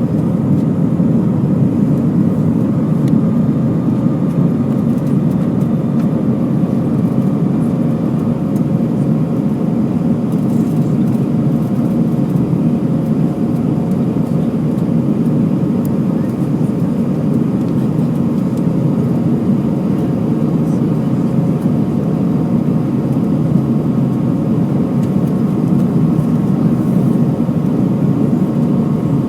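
Steady, unbroken cabin noise inside an Airbus A320-232 in flight: a low rush of airflow with a faint hum from its IAE V2500 engines.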